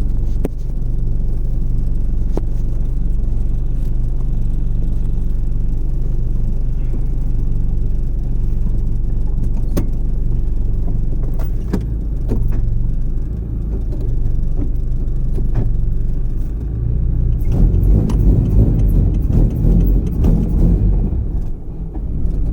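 The H2B-swapped Honda Civic's engine runs steadily at a constant pitch. It grows louder and rougher for a few seconds about three-quarters of the way through, with a few light clicks along the way.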